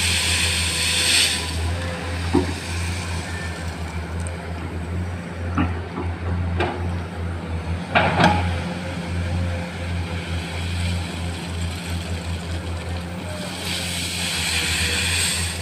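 Komatsu PC210 excavator's diesel engine running steadily, with a hiss in the first second and again near the end, and a few sharp knocks, the loudest about eight seconds in.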